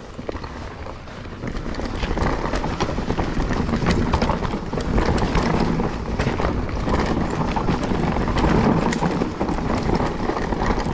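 GT Force Carbon Elite mountain bike ridden along a dirt forest trail: tyres rolling over dirt and roots, with constant rattling and clicking from the bike over the bumps. It gets louder about two seconds in as the bike picks up speed.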